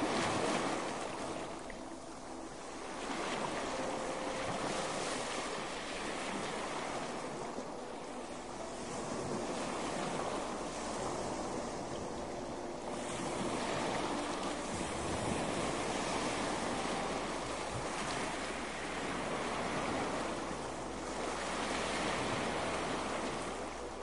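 Ocean waves breaking on the shore, the surf swelling and easing every few seconds.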